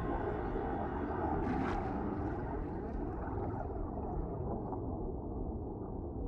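Deep-ocean underwater ambience: a steady low rumbling wash of noise, with a faint click about a second and a half in.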